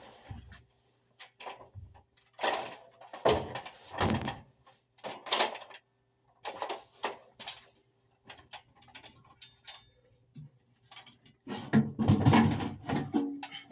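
Irregular metallic knocks and scrapes as furnace parts are handled and fitted during a blower motor replacement, with a denser burst of clatter near the end. A faint steady hum runs underneath for most of it.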